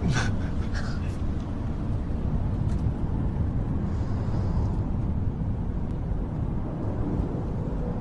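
Steady low rumble of road noise inside a moving car's cabin, with a couple of brief soft sounds in the first second.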